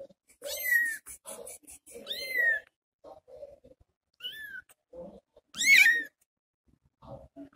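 Young tabby kitten meowing four times in short, high-pitched calls that rise and fall, the fourth the loudest, calling for its absent mother. Fainter low sounds come between the calls.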